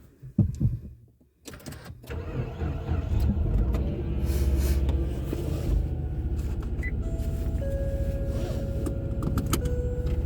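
A few knocks and clicks, then a car engine starting about a second and a half in and settling into a steady low running sound.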